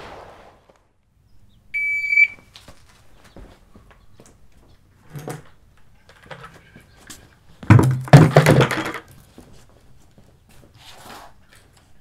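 A shot timer's start beep, one steady high tone of about half a second, near two seconds in; then knocks and scrapes as plastic buckets and a tire are grabbed, carried and set down, loudest around eight seconds in.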